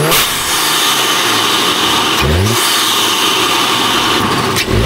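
Audi A3's turbocharged TFSI engine, freshly flashed with a stage 2 tune, revved in short blips about two and a half seconds apart, each a quick rising rev, over a steady hiss.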